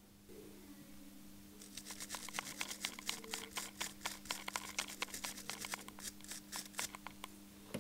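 Small wire brush scrubbing a small black plastic part of a computer: a quick, irregular run of short scratchy strokes starting about a second and a half in, over a faint low steady hum.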